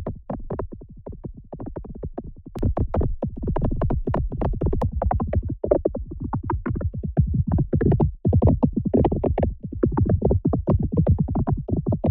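Synthesized rumble made from pink noise gated by crackle noise: a dense run of rapid, irregular crackling transients over a low rumble, swelling and fading in bursts with brief gaps. The effect imitates a wet paintbrush being beaten dry against an easel.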